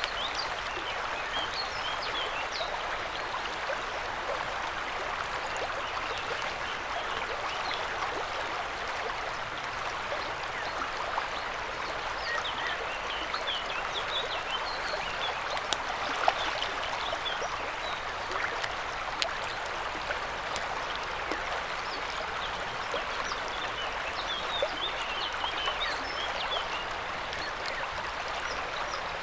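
A river's water rushing steadily, with many small high bubbling plinks over the even rush.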